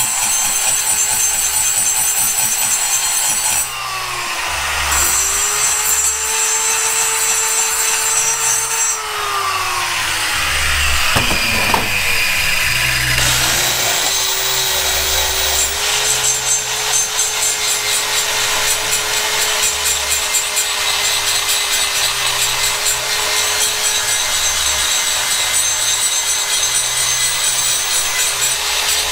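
High-speed die grinder porting an aluminium cylinder head, a steady high whine with a grinding rasp from the cutter on the metal. Its pitch sags and recovers as it bites, about four seconds in and again around nine, and near the middle it slows almost to a stop before spinning back up.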